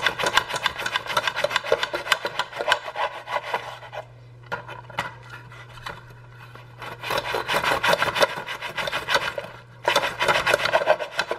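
A long kitchen knife sawing back and forth through a crusty loaf of bread, guided between the slats of a bamboo bread slicer, in quick rasping strokes. The strokes soften for a few seconds in the middle, then pick up again.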